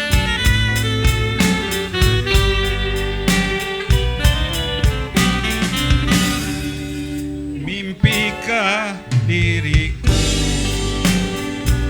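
Javanese gamelan-style ensemble music with sharp, regular drum strokes over held pitched notes, and a short wavering melodic phrase about eight seconds in.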